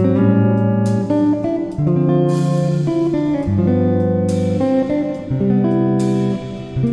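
Background music played on a plucked guitar, a melody of clearly struck notes with new notes coming every half second to a second.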